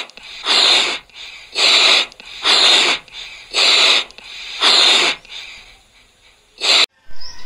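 Five loud hissing bursts of rushing air, about one a second, each lasting about half a second, then a shorter burst near the end.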